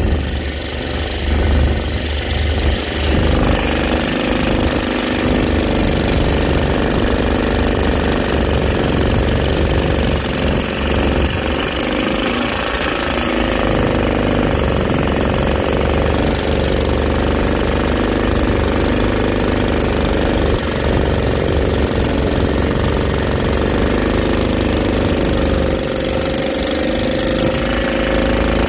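Worn-out Honda GX160 single-cylinder engine on a Mud Skipper Twister mud motor, running under load pushing a flat-bottom jon boat. It speeds up about three seconds in, then holds a steady drone.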